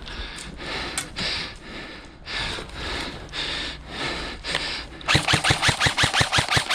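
Airsoft gun firing full-auto: a fast, even rattle of about a dozen shots a second that starts about five seconds in. Before it come scuffing noise bursts, about two a second.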